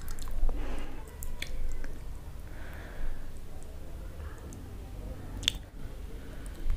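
Wet squishing and small clicks of fingers handling chutney-coated chilli pakoda and soft sponge rasgulla, with one sharp click about five and a half seconds in.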